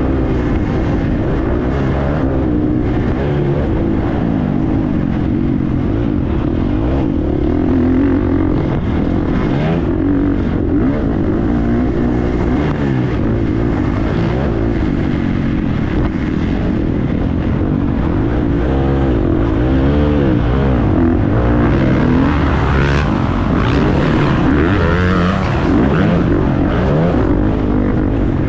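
Husqvarna FC350's single-cylinder four-stroke motocross engine at race throttle, its pitch rising and falling again and again as the throttle opens and closes. It is a little louder in the second half.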